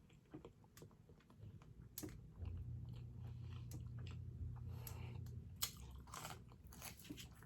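Close-miked chewing and biting of food, with scattered crunches and wet mouth clicks.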